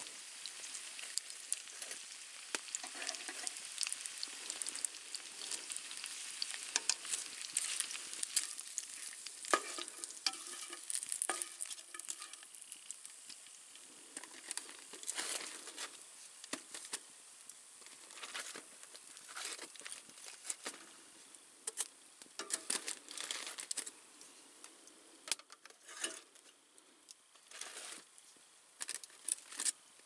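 Bacon and sausages sizzling in a frying pan over a campfire, a steady hiss that grows fainter in the second half. Scattered clicks and crinkles of wooden tongs and aluminium foil as waffles are turned on the grill.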